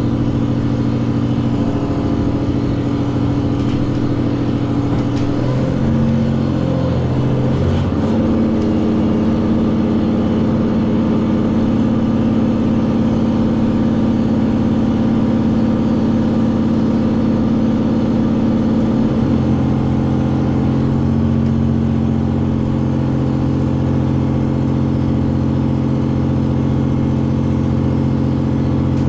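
Interior sound of a JR Hokkaido H100 'DECMO' diesel-electric railcar under way: the steady drone of its diesel engine-generator. The engine note glides to a new pitch between about six and eight seconds in, and changes again around nineteen seconds.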